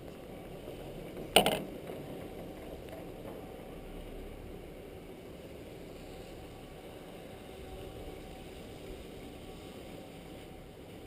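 Chairlift ride: a steady rushing noise of the moving chair, with one sharp clank about a second and a half in.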